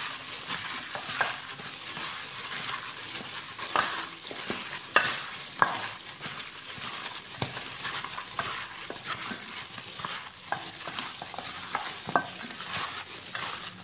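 Raw pork rib pieces being mixed by a gloved hand with marinade in a stainless steel bowl: irregular wet squelching and rustling, with a few sharper knocks.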